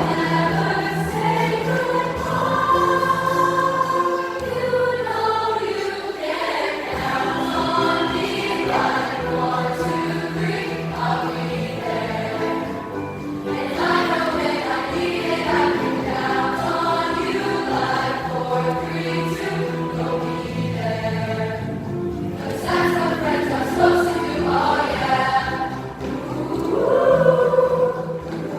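Junior high school choir singing a song in many voices over held low accompaniment notes that change every few seconds.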